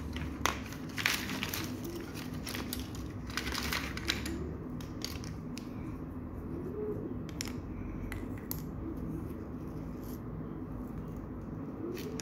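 Plastic felt-tip markers being handled and sorted, with scattered sharp clicks and short rustles, the busiest stretches about a second in and again around three and a half seconds.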